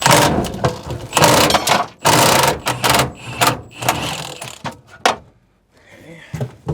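Impact wrench rattling in several bursts of about a second each, then a few short blips, as it works the nuts loose from the truck bed's mounting bolts and U-bolts; it stops about five seconds in.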